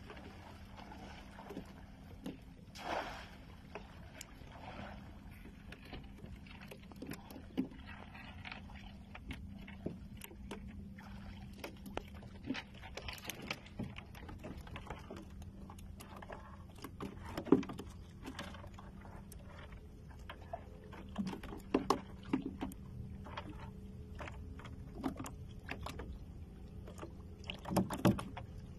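Shallow seawater splashing and sloshing around a wader's legs and hands working under the surface, with scattered short splashes and clicks, the loudest about 17 seconds in and again near the end. A steady low hum runs underneath.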